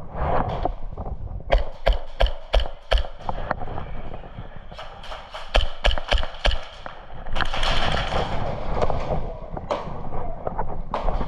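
Airsoft guns firing: sharp cracks in quick, irregular clusters, several a second, with a stretch of rushing hiss about eight seconds in.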